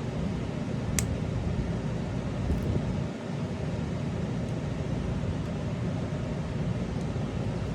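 Steady low background hum, with one sharp light click about a second in and a few faint ticks, as a small tool and metal parts are handled while undoing the set screws on a paintball marker's bolt assembly.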